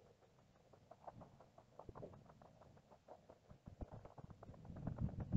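Faint footsteps on a wet gravel road: irregular soft crunches and knocks of loose stones underfoot, a little louder near the end.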